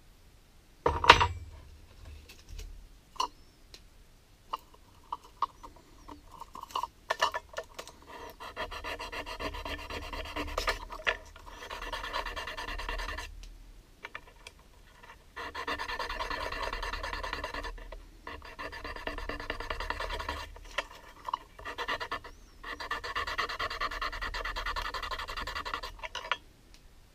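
A sharp metallic knock about a second in. Then repeated stretches of rasping and scraping, each two to three seconds long with short pauses between, as the small machined aluminium fitting is worked over by hand.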